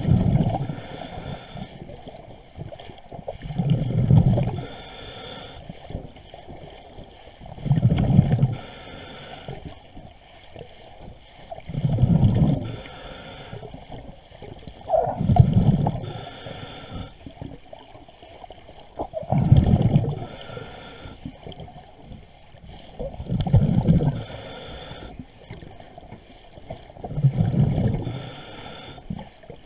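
A bubbling, gurgling rush of water heard through a submerged camera beside a boat hull. It comes about every four seconds and lasts about a second each time.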